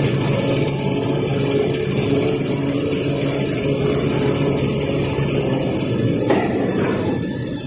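Toilet roll rewinding line running: a steady mechanical hum with a high whine over it. The whine falls in pitch and the sound eases off a little about six seconds in.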